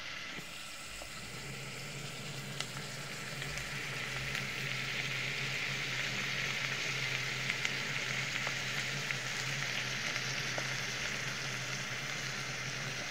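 Chopped red onions sizzling in hot oil in an aluminium pot, a steady frying hiss with a few small pops that grows a little louder a few seconds in, as the onions cook towards golden brown. A low steady hum runs underneath.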